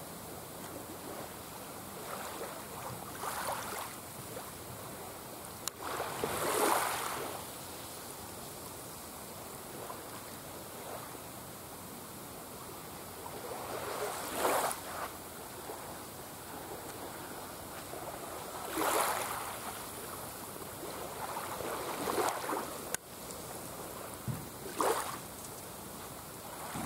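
Small waves lapping and washing onto the beach's edge in a calm sea, each wash swelling up and falling away every few seconds over a steady low hiss of water.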